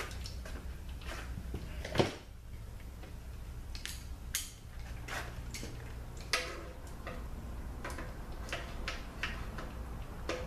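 Irregular metallic clicks and knocks of hand tools being handled and set against a transmission's steel oil pan and its bolts, the sharpest knock about two seconds in. A steady low hum lies underneath.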